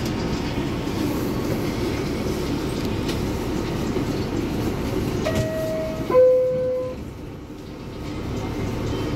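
Steady rumble inside an R62A subway car, then about five seconds in the two-note descending door chime, the second note lower and louder, that signals the doors are about to close.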